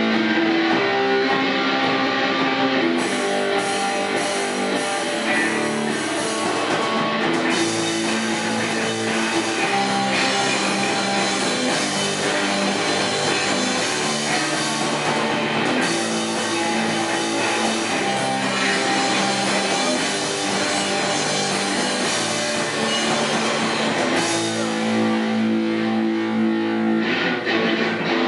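Punk rock band playing live: distorted electric guitar and bass guitar with a drum kit. The guitars open alone, the full drums and cymbals come in about three seconds in, and near the end the drums drop out for a few seconds before the full band comes back.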